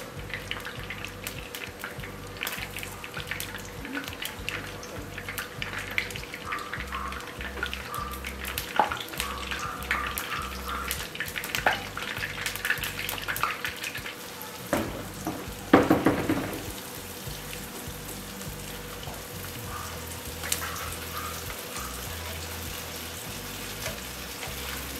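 Breaded tofu strips deep-frying in a pan of hot oil: a steady sizzle full of small crackles and pops, with one louder flare of sputtering about sixteen seconds in.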